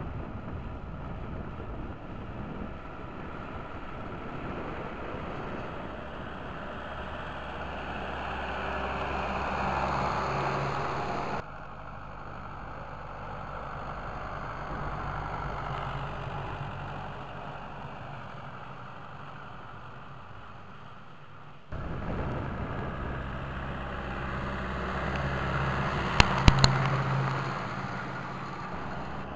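Ursus 1014 tractor's diesel engine running steadily as it drives across the field pulling a fertilizer spreader, growing louder as it comes closer. A few sharp clicks come near the end.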